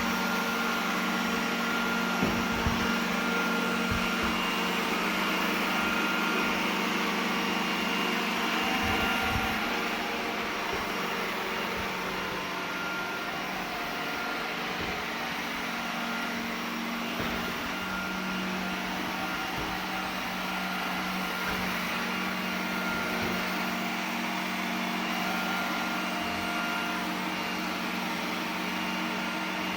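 iRobot Roomba 980 robot vacuum running: a steady hum of its motors and suction fan, with a few low knocks in the first ten seconds. The sound drops slightly in level about a third of the way in.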